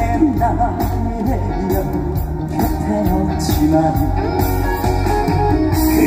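Live trot song heard through the concert PA: a male singer singing over backing music with a steady beat.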